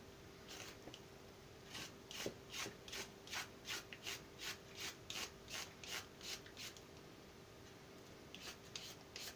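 Handheld vegetable peeler scraping down a zucchini, shaving off thin slices in quick strokes about three a second. A pause, then a few more strokes near the end.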